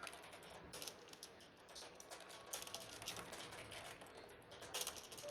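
Irregular light clicks and rustling from something being handled.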